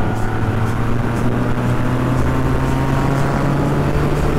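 Yamaha MT-09's inline three-cylinder engine running steadily at motorway cruising speed, with wind rushing over the helmet-mounted camera.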